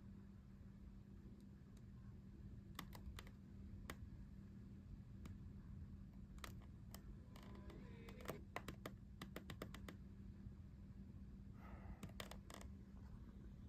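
Near silence: a faint steady hum, with scattered light clicks that come in a quick run around the middle.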